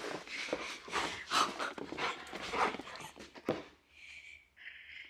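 Rottweiler panting hard in quick, noisy breaths, about two a second, that die away about three and a half seconds in.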